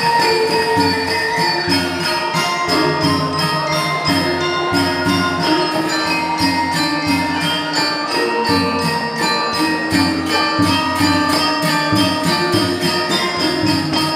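Balinese gamelan ensemble playing: bronze metallophones ring in interlocking melody over low gong tones, driven by fast, even cymbal clashes.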